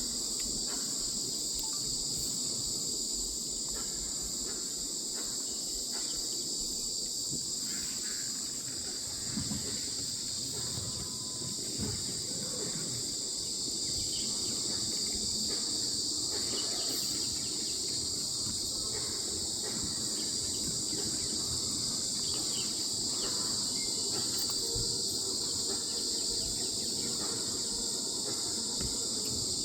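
Steady, high-pitched drone of an insect chorus, with faint low rumbling and a few soft knocks underneath.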